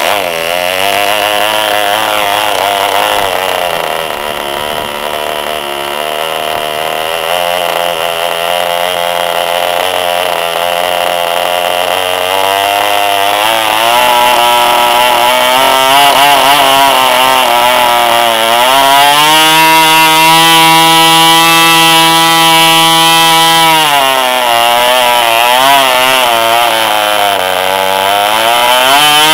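2.5 cc MK-12B Soviet model diesel engine starting abruptly as the propeller is flicked by hand, then running loud and fast, its speed wandering up and down as the compression lever on top is adjusted. It holds a steady high pitch for a few seconds past the middle, drops, and climbs again near the end.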